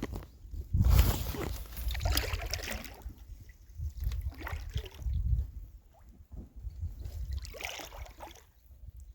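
Packraft paddle strokes dipping and splashing in creek water, a few irregular strokes over a low rumble.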